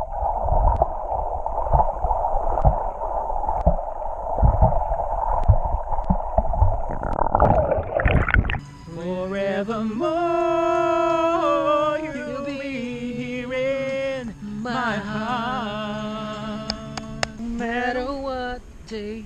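Muffled underwater sound from a camera below the surface, with bubbles and low knocks. About eight seconds in it cuts to a voice singing a slow melody with long, wavering held notes.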